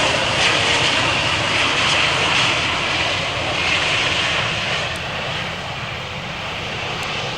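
Boeing 757 jet engines, a loud steady rushing noise strongest in the upper middle of the range, fading gradually through the second half.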